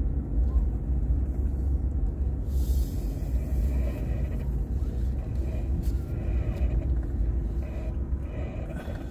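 Steady low rumble of a car driving, heard from inside the cabin: engine and tyre noise on the road, with a brief hiss about two and a half seconds in.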